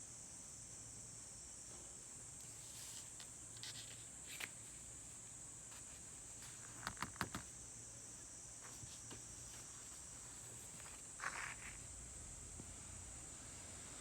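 Quiet room tone with a steady high-pitched hiss, broken by a few light clicks, a quick run of four clicks about halfway through, and a short rustle near the end.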